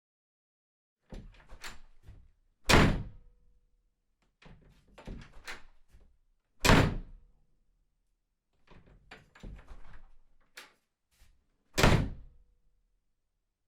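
A door opened and slammed shut three times over: each time a few lighter clicks and rattles as the handle and latch are worked, then one loud slam.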